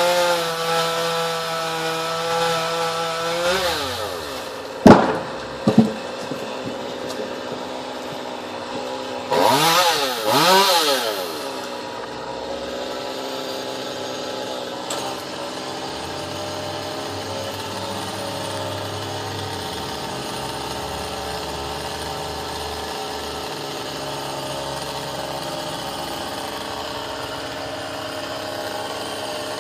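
Two-stroke chainsaw revved up and held at high speed for a few seconds, then dropping back. Two sharp, loud knocks follow about five and six seconds in. Around ten seconds in come two short blips of the throttle, and after that the saw idles steadily.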